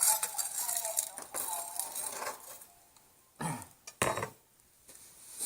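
Clinking and knocking of hard objects, with two sharp knocks about three and a half and four seconds in.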